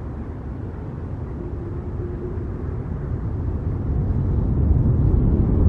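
Low rumble of an airplane coming in to land, growing steadily louder as it approaches.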